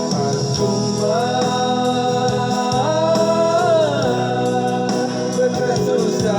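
Music: an organ-toned keyboard backing under a held melody line that glides up about a second in and slides back down about four seconds in.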